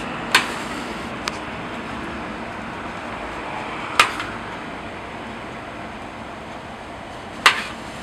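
Metal spatula clinking against the cast-iron taiyaki moulds while filling is spread on the batter: three sharp clinks a few seconds apart and a fainter one, over a steady hiss.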